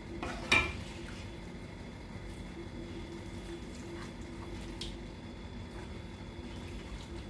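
A spatula knocks sharply against a nonstick cooking pot once, about half a second in, then a few faint clicks and soft stirring in thick curry, over a steady low hum.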